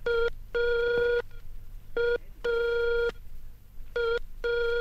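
Telephone ringing tone heard down the line while a call is placed: a buzzy steady tone in a short beep followed by a longer one, the pair repeating three times about every two seconds.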